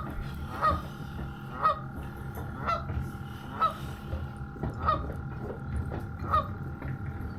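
A goose honking, a short call about once a second, seven times, over a steady low rumble.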